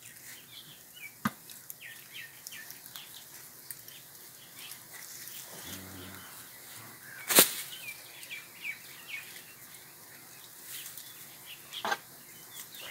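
Small birds chirping steadily in the background. Sharp knocks or cracks stand out about a second in, near the middle (the loudest), and near the end.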